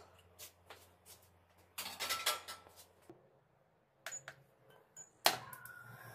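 Steel utensils clinking and clattering against a steel container, then short high beeps from an induction cooktop's touch buttons. Near the end comes one sharp metallic clank, the loudest sound, as a steel kadhai is set down on the cooktop.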